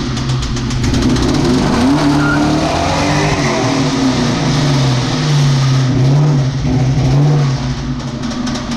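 A 1999 Mustang GT's 4.6-litre V8 revving hard during a burnout, with the tyres spinning and squealing. The engine pitch climbs about two seconds in, wavers at high revs and falls off near the end. The engine has a rod knock and is missing on a couple of cylinders.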